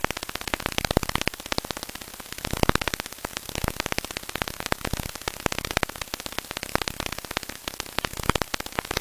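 Radio sonification of the pulsar PSR B1055−52: a rapid train of clicks over static hiss. It pulses twice per rotation, once every 0.197 s, so the clicks come in a doubled rhythm that sometimes weakens.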